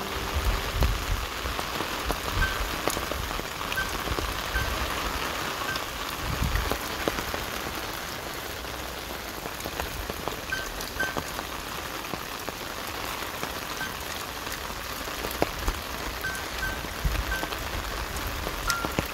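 Steady rain falling on leaves, an even hiss with scattered drips and occasional low thumps, and short high peeps repeating now and then.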